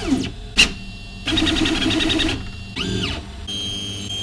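VzBot 3D printer's stepper motors during fast printing moves. They whine, rising and falling in pitch as the toolhead speeds up and slows. A sharp click comes about half a second in, then a quick buzzing run of roughly ten short strokes a second, and a steady high whine near the end.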